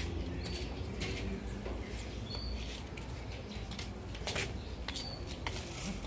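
Scattered clicks and light knocks as potted plants are handled and shifted, with three short high chirps of a small bird, over a low steady background rumble.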